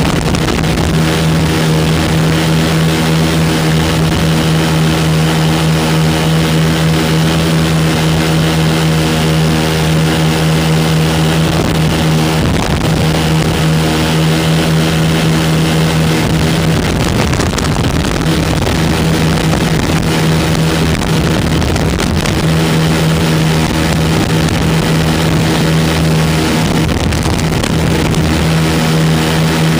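The twin 9.5 hp Rotax engines of a Lazair ultralight running steadily at cruise in flight, a loud even drone with a rush of air over it. The pitch wavers for a few seconds past the middle, then settles back.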